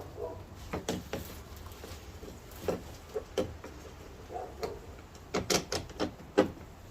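Irregular clicks and knocks from a replacement door handle and its metal linkage rod being worked into place inside a car door. The taps are sparse at first, then come in a louder cluster of several sharp clicks in the second half.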